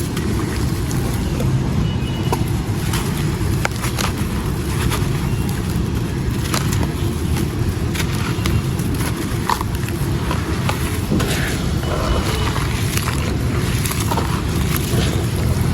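Wet, gritty stone and sand-cement chunks crumbling and breaking apart, with many small irregular crackles and clicks over a steady low rumble.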